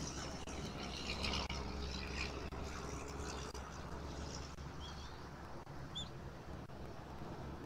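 Outdoor nest-camera ambience: a steady low rumble under a high hiss that thins out after about three seconds, with two short high bird chirps in the second half.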